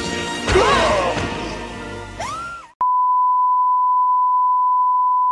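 Cartoon soundtrack music and sound effects, including a rising-then-falling tone, cut off abruptly about two and a half seconds in. Then a steady 1 kHz test-tone beep, the reference tone that goes with TV colour bars, holds without change.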